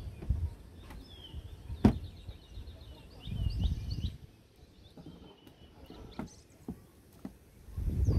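Handling of a portable chemical toilet being taken apart, with dull bumps and one sharp plastic click about two seconds in. Birds chirp in the background.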